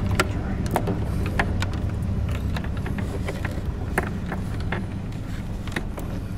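Wires and insulated spade connectors being handled and pushed onto switch terminals, a scatter of light clicks and rustles, over a steady low hum.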